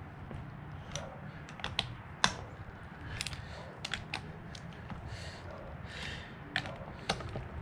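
Scattered light clicks and taps of a hand tool on the aluminum head of a Viair 380C air compressor as its bolts are snugged down, at irregular spacing, with one sharper click a little over two seconds in.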